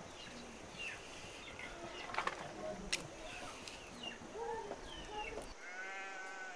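A single long, wavering bleat from livestock near the end. Before it are faint scattered short calls and two sharp knocks, about two and three seconds in.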